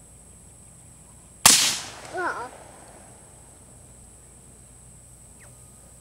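A single shot from an AR-15 fitted with a Gemtech G5 suppressor, about a second and a half in, a sharp crack that dies away over about half a second. A short pitched, wavering sound follows about half a second later.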